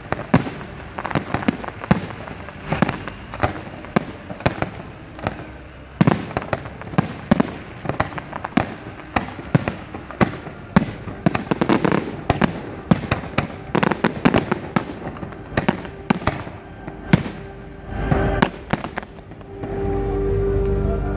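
Fireworks display: a rapid, dense run of sharp bangs from bursting aerial shells, several a second, thinning out over the last few seconds as the barrage ends.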